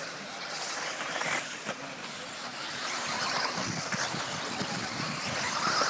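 Several radio-controlled off-road buggies racing, their motors and tyres making a continuous high, hissy sound that swells and fades as the cars pass.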